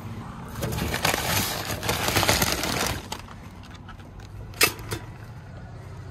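Handling noise from collecting a parcel from a parcel locker: a crackling rustle for about two seconds, then a sharp click and a lighter one just after.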